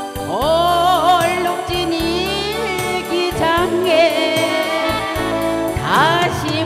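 Woman singing a Korean trot song into a microphone, her voice carrying vibrato, accompanied by saxophone and electric guitar over a steady beat.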